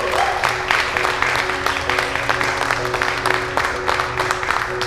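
A group of people applauding, a dense run of claps, over background music holding long, steady notes.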